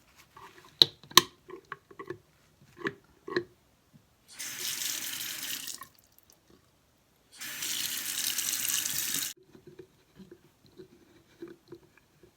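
Sink faucet turned on twice, water running into the basin for about a second and a half and then about two seconds, each time cutting off sharply. Before it, a few sharp clicks and knocks of the drain stopper being pushed back into the sink drain, and small taps afterwards.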